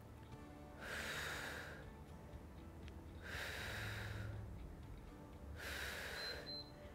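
A woman's heavy breathing during a dumbbell exercise: three audible breaths about two and a half seconds apart.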